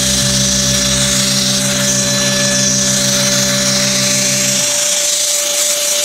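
Efbe-Schott mini hand vacuum cleaner's motor running steadily: a high whine over a loud hiss of air, with a low hum underneath that drops away about five seconds in.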